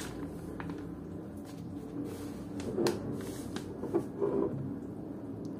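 Steady low room hum with a few soft knocks and small handling noises, about three seconds in and again around four seconds in.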